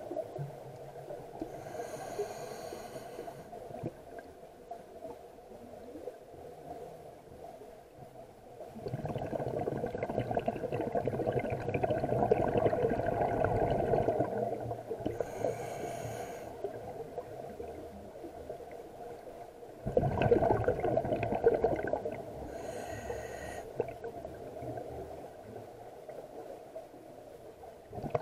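Scuba diver breathing through a regulator underwater: three short hissing inhalations through the demand valve, each followed several seconds later by a louder rush of exhaled bubbles.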